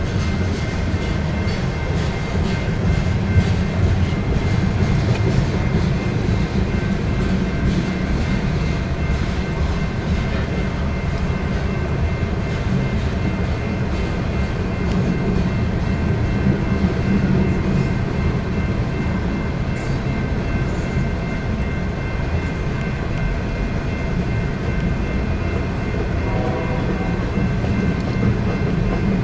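Union Pacific manifest freight train rolling past: a steady, loud rumble of wheels on rail with a faint, steady high ringing over it.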